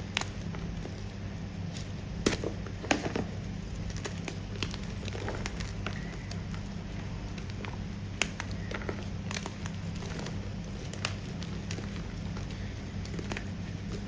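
Firm pasted gym chalk being bitten and chewed close to the microphone: irregular sharp, crisp crunches, loudest about two to three seconds in, over a steady low hum.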